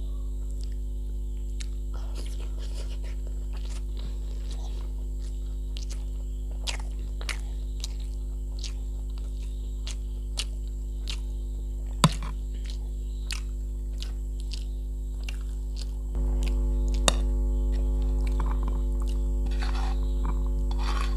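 Steady electrical mains hum with a buzz of overtones, stepping louder about three-quarters of the way through, dotted with a few light clicks and taps of dishes being handled. Near the end, rice being scraped by hand off a steel plate.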